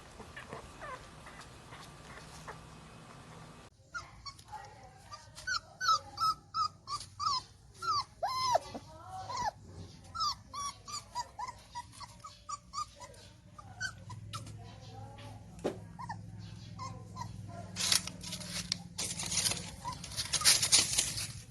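Chihuahua puppy crying: many short, high-pitched whimpering whines in quick succession, starting about four seconds in. Near the end come two loud stretches of rustling noise.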